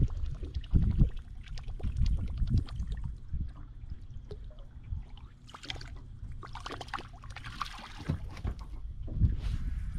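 Choppy lake water lapping and slapping against the hull of a small fishing boat, with a few brief splashy rushes. Wind buffets the microphone in low gusts over the first few seconds.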